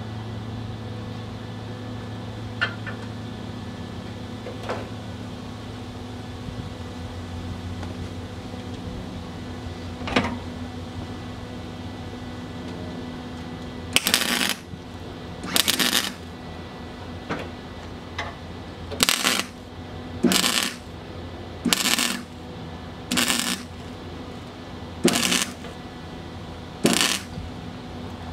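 Welder laying a row of short tack welds on sheet steel: about ten brief crackling bursts one to two seconds apart, starting about halfway through, after a steady low hum with a few faint clicks.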